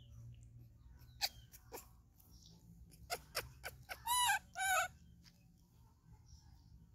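A few sharp, clicky chirps, then two short high-pitched animal calls about half a second apart, each a clear tone that rises and falls.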